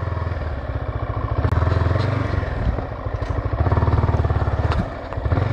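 Yamaha R15 V4's single-cylinder engine running at low speed while the motorcycle is turned around, picked up by a microphone inside the rider's helmet. The engine grows louder about a second and a half in and again past the middle, and eases off near the end.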